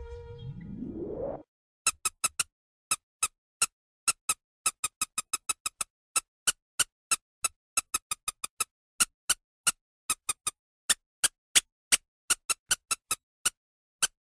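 Rat squeaking sound effect: a long, irregular run of short, sharp squeaks, about two or three a second. It is preceded in the first second and a half by a rising pitch sweep and the tail of a held horn-like tone.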